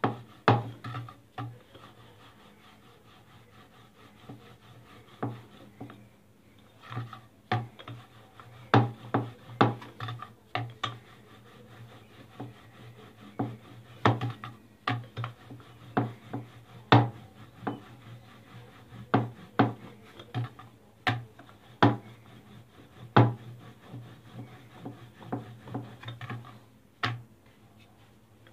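Wooden rolling pin rolling out flatbread dough on a round board: irregular clicks and knocks as the pin taps and rocks against the board, with soft rubbing in between. A faint steady low hum runs underneath.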